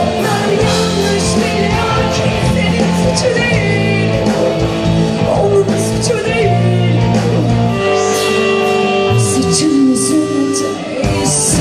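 Live concert music: a singer over a pop-rock band with guitar, playing steadily through.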